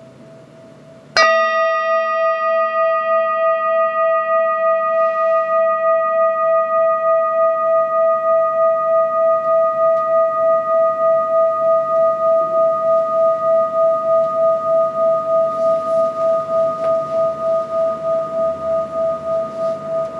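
Large metal singing bowl struck once about a second in, then ringing on in one long, slowly fading tone with a steady pulsing wobble.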